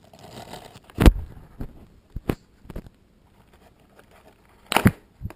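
Handling noise from unplugging a red battery connector inside a foam RC plane's fuselage: a brief rustle, a sharp knock about a second in, a few lighter clicks, and another burst of knocks near the end.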